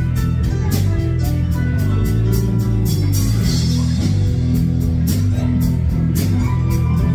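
Live rock band playing: electric guitars and bass guitar over drums keeping a steady beat.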